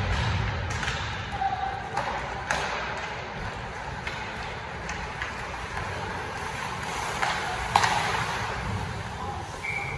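Ice hockey play in an indoor rink: skates scraping the ice under a steady hall noise, with sharp clacks of sticks and puck every few seconds. The loudest clack comes about eight seconds in.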